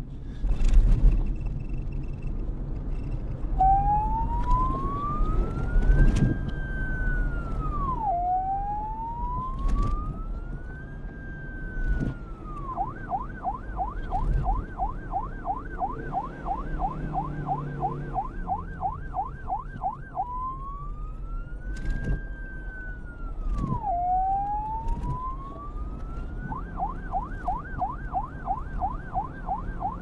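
Police siren played in reverse: wail tones that climb slowly and then drop away sharply, alternating with a fast yelp of about four cycles a second. Underneath are a low rumble and a few sharp knocks.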